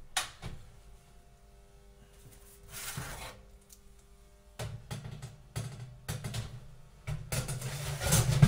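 Kitchen handling noises: scattered clicks, knocks and clatter with a short hiss, and a low hum coming in about halfway through.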